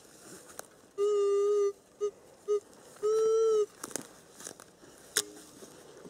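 Metal detector beeping on a metal target: one long steady tone about a second in, two short beeps, then another long tone. A few faint clicks follow, and one sharp click near the end.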